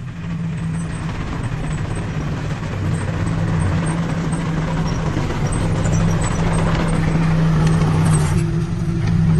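Diesel engine of heavy earthmoving equipment running steadily with a deep hum, growing louder over the first few seconds.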